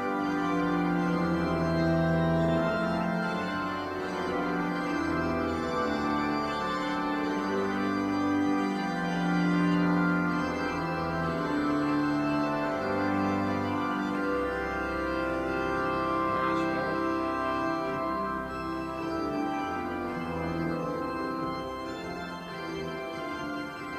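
Johannus Vivaldi 250 digital church organ playing a hymn setting in sustained full chords, with pedal bass notes changing every second or two under the manual chords.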